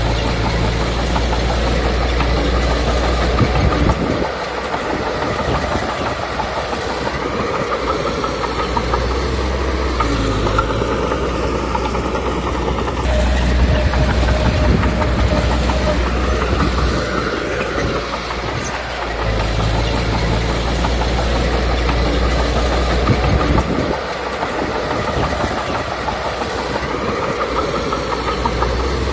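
Komatsu D21P crawler bulldozer working: its diesel engine runs under load, swelling and easing every few seconds with the pitch rising and falling, over a continuous clatter of steel tracks.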